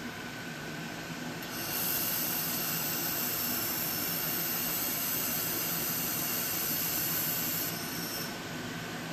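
A 2000 W air-cooled handheld laser welder running a wire-fed bead along an outside corner of 18-gauge stainless steel. It gives a steady high hiss that starts about a second and a half in and cuts off about eight seconds in. A steady machine hum runs underneath.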